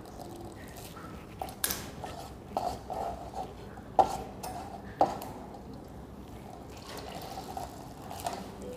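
Grated bottle gourd squeezed in the hand, its juice dripping and trickling into a steel plate, with a few sharp clinks about a second and a half, four and five seconds in.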